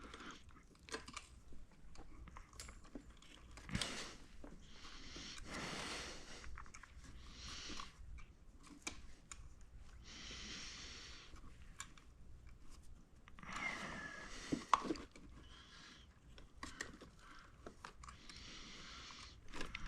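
Faint handling noises: scattered light clicks and taps with soft rustling stretches as small parts and a wire are worked by hand.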